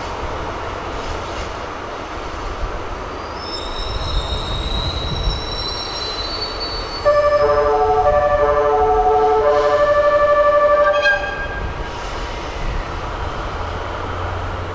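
The Shiki-shima (E001 series) train's music horn playing a short melody of several stepped notes, lasting about four seconds from about seven seconds in, to signal departure. It sounds over a steady low rumble, and faint high thin tones come a few seconds before it.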